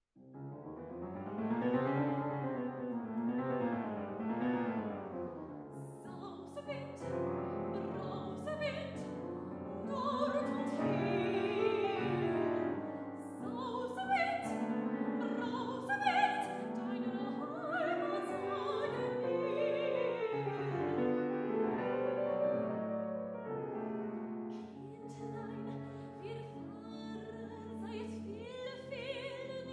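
A grand piano opens with rolling arpeggios that rise and fall in waves. About six seconds in, a woman's classical art-song voice enters, singing with vibrato over the piano accompaniment.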